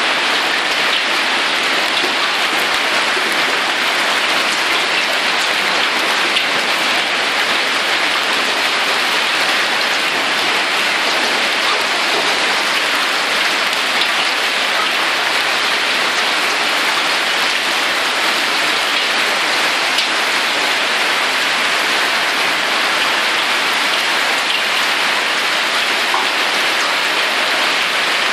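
Hail and heavy rain pelting paving stones, a loud, steady hiss that does not let up.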